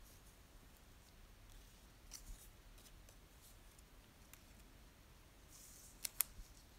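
Faint rustling and sliding of paper cutouts and pressed leaves being lifted and laid on a journal page, with two light clicks a little after six seconds in.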